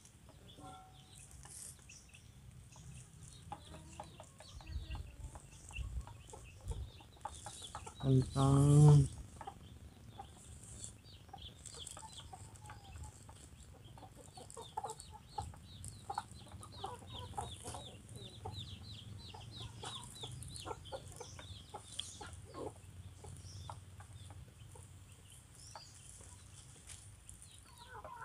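Chickens clucking on and off.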